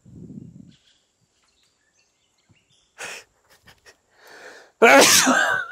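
A man's breathy exhalations and a loud strained grunt of effort near the end, with a few faint clicks, as he tugs a pouch free of a tree branch.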